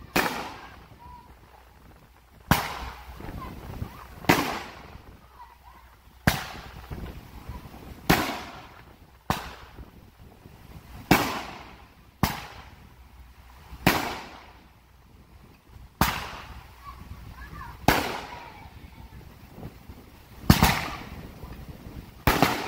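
Consumer firework cake, the Red Giant, firing a string of aerial shells: about thirteen sharp bangs, one every second and a half to two seconds or so, each dying away over about a second.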